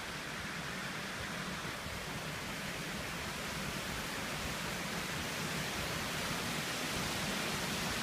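Water of a stepped cascade fountain pouring over two tiers of stone ledges into a shallow pool: a steady rushing splash that grows slightly louder.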